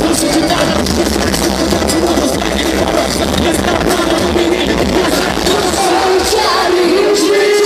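Live rap performance played loud through a concert PA: a rapper's amplified vocal over a heavy bass beat, heard from within the crowd. The bass drops out about six seconds in, leaving the voice.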